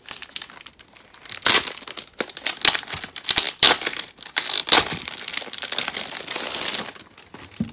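Clear plastic sleeve crinkling and rustling as hands pull and smooth it around a stack of photo prints, in irregular crackles that are loudest about a second and a half, three and a half and four and a half seconds in.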